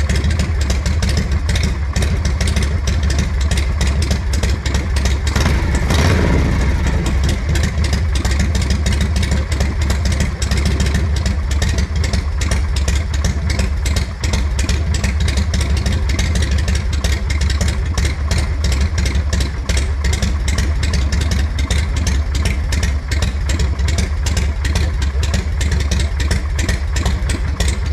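1981 Harley-Davidson Shovelhead's 45-degree V-twin engine idling cold with an even, rapid beat, rising briefly in a short rev about five to six seconds in.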